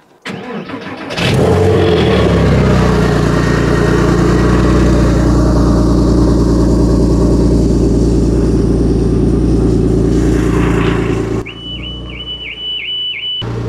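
Porsche Boxster 986 flat-six engine cranking and catching about a second in, flaring briefly and then running loud and steady, with a head-gasket tester fitted. Near the end a car alarm sounds in a run of pulsing beeps, set off by the loud engine.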